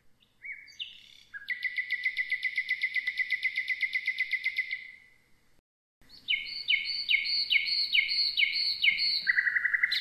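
Common nightingale singing two phrases: first a few rising notes, then a long fast run of rapidly repeated notes; after a short pause, slower repeated notes about three a second, ending in a lower, faster trill.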